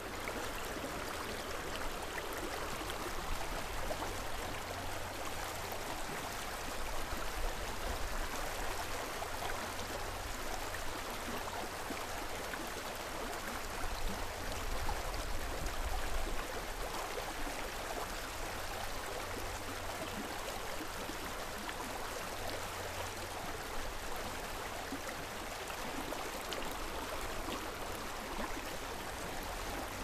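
The San Antonio River's water rushing over rocks: a steady, even rush of flowing water.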